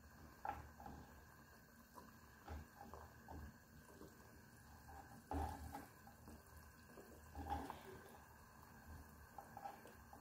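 Near silence: faint room tone with a few soft, short knocks spread through it.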